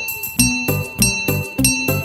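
Instrumental children's song backing music with a steady beat and bright bell-like chime tones.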